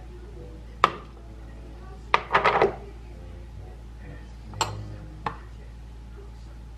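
Light plastic clatters and knocks as a white plastic citrus juicer is taken apart and handled: a sharp click about a second in, a short rattling cluster about two seconds in, and two more knocks a little later.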